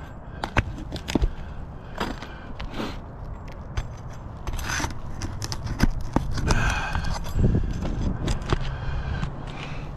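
Brittle asphalt roof shingles scraping and crackling as they are pried up and worked loose, with irregular sharp clicks and scrapes over a steady low rumble.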